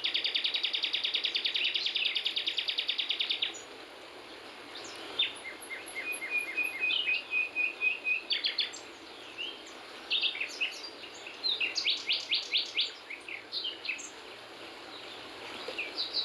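Wild birds singing: a fast, evenly pulsed trill that stops about three and a half seconds in, then scattered chirps and short runs of repeated notes, over a faint steady hiss.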